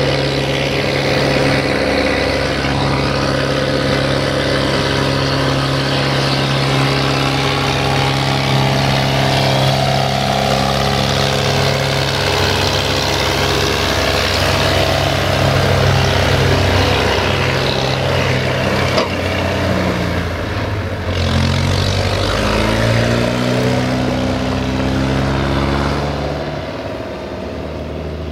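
SAME Corsaro 70 tractor's diesel engine running at steady revs as it pulls a loaded trailer past. About twenty seconds in the engine note drops briefly and then climbs again, and near the end it fades as the tractor moves off.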